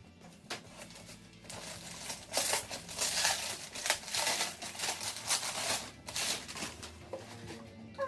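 Gift packaging crinkling and rustling in a long run of quick handling noises as a present is unwrapped, busiest in the middle.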